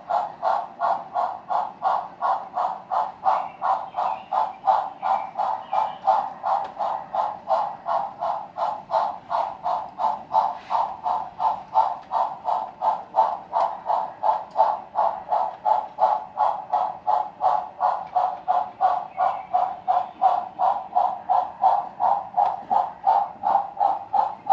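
Steam locomotive chuffing in a steady, even rhythm of about three beats a second.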